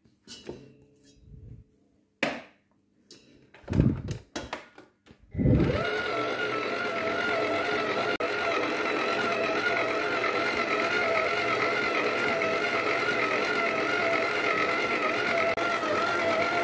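A few short knocks and clicks against the stand mixer, then about five seconds in the mixer's motor starts and runs steadily with a slightly wavering whine, its dough hook kneading stiff pandoro dough.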